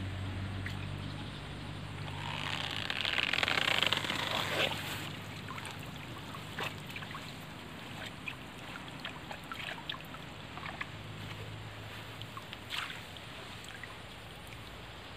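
A lift net being raised out of a river: a rush of water pouring off the mesh for a couple of seconds, then scattered drips and small splashes. A low steady hum runs underneath.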